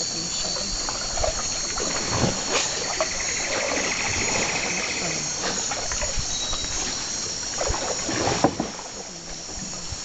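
Steady high buzzing of a rainforest insect chorus, with canoe paddles splashing in the water about two seconds in and again near the end, the loudest splash at about eight and a half seconds. A rapid pulsed trill runs for about two seconds near the middle.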